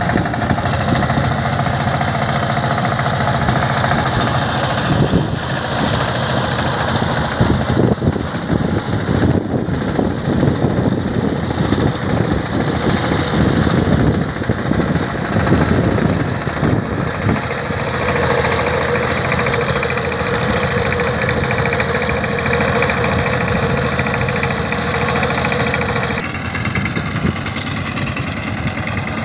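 Single-cylinder diesel engine of a two-wheel power tiller running steadily under load while its cage wheels plough through flooded paddy mud. A steady whine joins the engine for several seconds past the middle.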